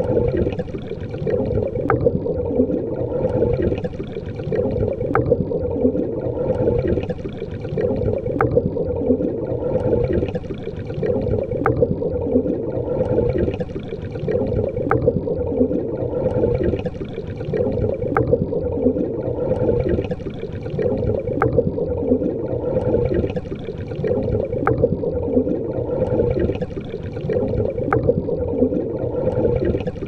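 Underwater rushing and bubbling water that swells and eases in a steady cycle about every three seconds, with a faint click in each cycle.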